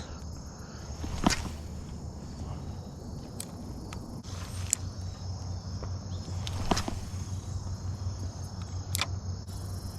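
Steady high chorus of crickets, with a handful of sharp, isolated clicks scattered through it.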